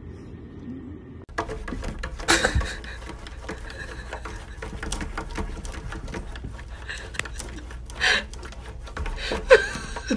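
Irregular clicking and tapping of a cat's paws against window glass, with a few louder short sounds standing out.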